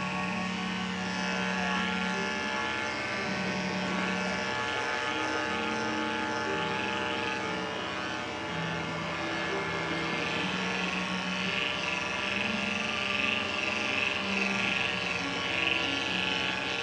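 Andis 5-speed corded dog clipper with an Oster attachment comb over a #10 blade, running steadily while clipping the dog's coat with the grain. Its hum shifts slightly in pitch now and then.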